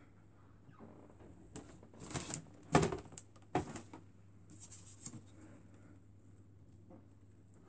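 Woven seagrass storage baskets and their lids being handled: crackly wicker rustles and a few knocks. The loudest is a sharp knock about three seconds in, with smaller knocks shortly after.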